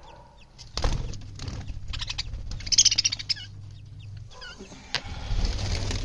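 Budgerigars chirping, loudest in a quick cluster of high twitters about three seconds in, over rustling and a few knocks from handling, with a low steady hum underneath.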